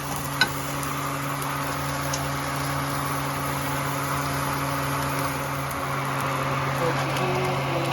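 Microwave oven running with a steady hum, with one short click about half a second in.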